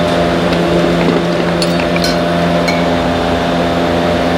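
A machine running with a steady, loud hum of several constant tones. A few light metal clicks come from brake pads and hardware being handled.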